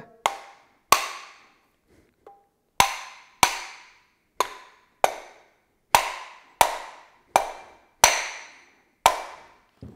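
A hammer rapping a cast-aluminium Harley-Davidson Sportster rocker box about a dozen times, each a sharp knock that rings briefly, irregularly spaced about half a second to a second apart. The blows knock the rocker shaft's O-ring loose from the box.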